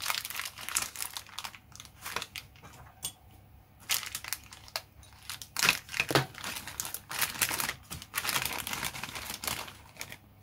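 Clear plastic bag crinkling in irregular crackles as it is opened and a clear plastic sprue of model-kit canopy parts is slid out of it.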